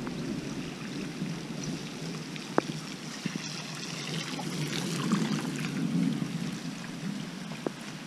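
Unicycle tyre rolling through shallow floodwater on a wet path, with splashing water over a steady rush of water. Two sharp clicks, one about two and a half seconds in and one near the end.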